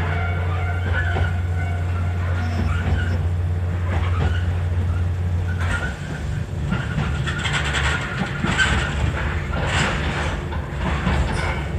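Yoro Railway electric train running, heard from inside the passenger car. A steady low hum with several faint whining tones gives way about six seconds in to a rougher rumble with frequent clicks and rattles of the wheels over the rails.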